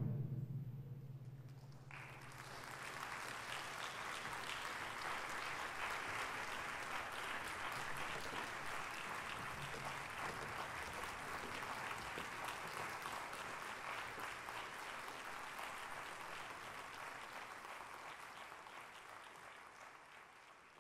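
The orchestra's final chord dies away in the hall's reverberation, then a concert audience applauds steadily, starting about two seconds in and fading out near the end.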